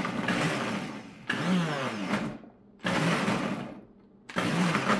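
Countertop blender pulsed in four short bursts of about a second each, its motor spinning up and winding down with each pulse. It is chopping onion, garlic, ginger and green chilies in the jar without water.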